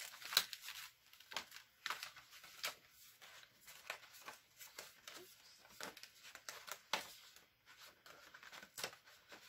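Cut cardstock being peeled off a sticky cutting mat: irregular crackles and short tearing rasps as the adhesive lets go of the paper.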